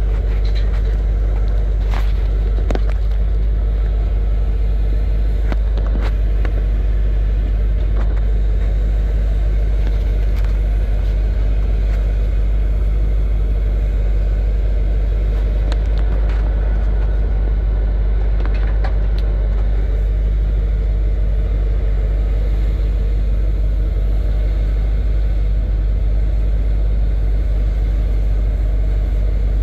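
Truck engine idling close to the microphone: a steady, deep rumble that does not change, with a few faint knocks.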